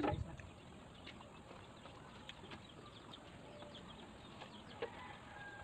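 Faint chickens clucking and small birds chirping now and then, with scattered soft clicks.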